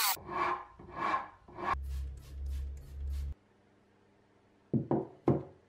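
Three rubbing strokes of an abrasive stick over the hammered steel head of a hatchet, then a low hum for about a second and a half. Near the end, three sharp knocks in quick succession.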